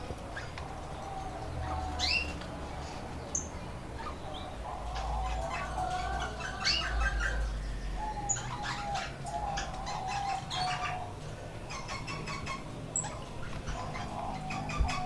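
Several caged canaries chirping and calling at once, with short rising chirps and quick trills overlapping throughout.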